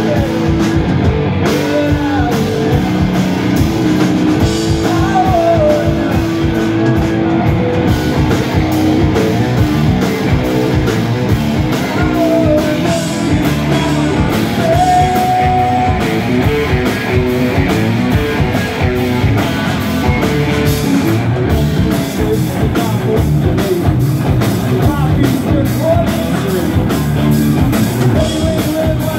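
Live rock band playing loudly: electric guitar, bass guitar and drum kit, with singing.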